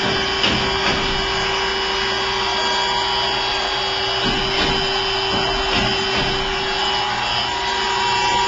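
Williams & White TFH-CS2 automatic top-and-face saw grinder running: a steady machine hum with a held tone and an even grinding hiss.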